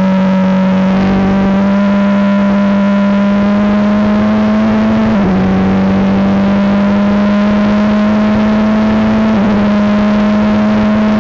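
Formula 3 race car's engine at full throttle, heard from onboard, its pitch climbing steadily as the car accelerates, with two quick upshifts, about five seconds in and about nine seconds in.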